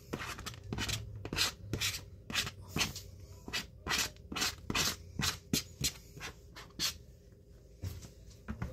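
Plastic bag of shredded cheese crinkling in short rustling strokes, about two a second, as the cheese is shaken out of it, dying away near the end.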